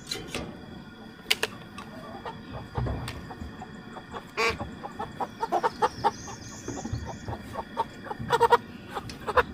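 Chickens clucking and squawking in a run of short calls, growing busier and louder in the second half.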